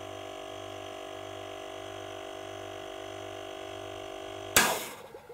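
Werther Sil-Air 15D silent airbrush compressor's refrigerator-type pump running with a steady hum as the tank nears 90 psi. About four and a half seconds in, the pump cuts out and the pressure-release valve vents a short burst of air, a bit of a bang, through a homemade bottle silencer packed with cotton wool. The burst dies away within a second.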